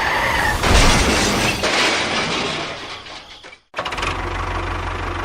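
An engine running, with a loud burst of hissing, crashing noise from about a second in, then a sudden cut and a steady low engine rumble.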